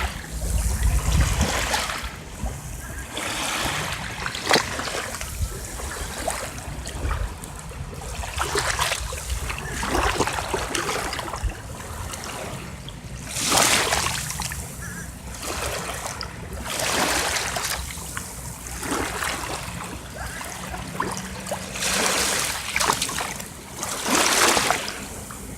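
Sea waves washing up on a beach, a fresh wash every few seconds, with the loudest ones about thirteen seconds in and near the end.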